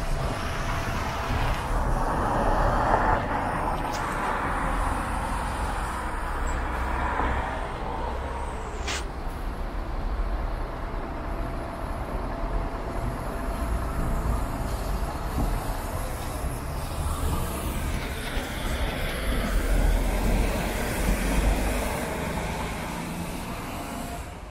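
City buses pulling away from and drawing into a bus stop, engines running over steady road traffic. A thin steady whine runs through the first ten seconds or so, and there is a short sharp sound about nine seconds in.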